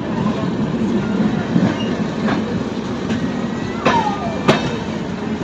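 Tripura Sundari Express passenger coach running on the rails, heard from the open door, with a steady rumble and clatter of the wheels. Two sharp clacks come about half a second apart near the end, the first with a short falling squeal.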